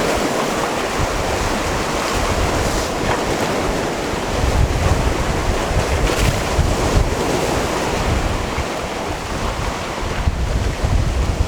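Sea waves washing steadily against a stony cove shore, with wind buffeting the microphone in low, gusty rumbles from about four seconds in.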